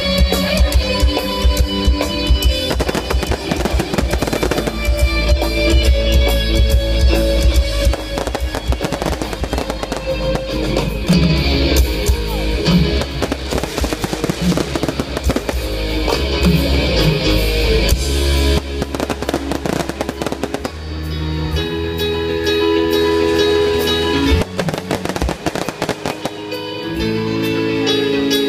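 Aerial fireworks crackling and banging in rapid volleys, mixed with loud music.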